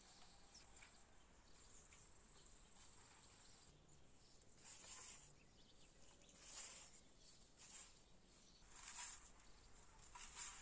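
Near silence with a faint steady background and about five short rustling or brushing sounds from about four and a half seconds in, each under half a second.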